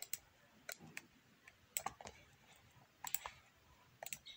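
Faint, irregular clicks of a computer mouse, a scattering of single clicks and short clusters.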